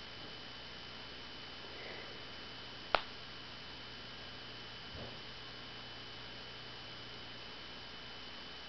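Steady low electrical hum with a faint hiss, with one sharp click about three seconds in and a softer bump near five seconds.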